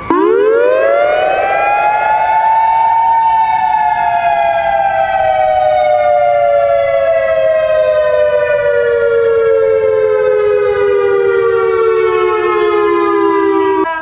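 Warning siren sounding one long wail: the pitch climbs quickly over the first three seconds or so, then sinks slowly and steadily until the sound cuts off near the end.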